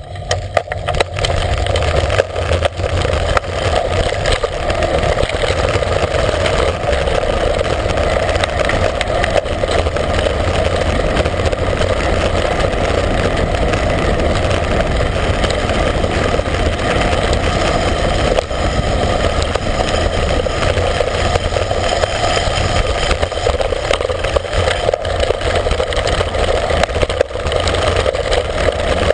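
Heavy, unbroken wind buffeting on the microphone of a camera riding on a bicycle descending fast, with a few sharp knocks from bumps in the road.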